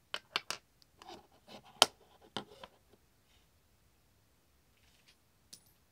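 Small plastic clicks and taps as true wireless earbuds are pulled from their magnetic charging case and the lid is snapped shut. The sharpest click comes about two seconds in, and the handling stops about halfway through.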